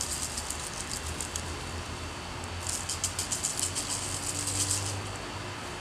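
Campfire crackling and popping as Epsom salt (magnesium sulfate) is thrown onto the flames: a quick run of crackles at the start, then a denser, louder run of pops from about two and a half to five seconds in.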